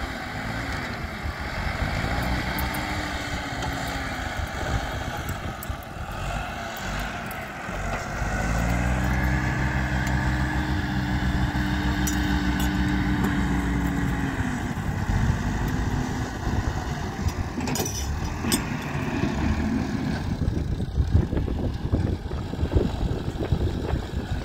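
Tractor engine working, its revs rising and falling repeatedly and held up for several seconds in the middle, with a few sharp knocks in the second half.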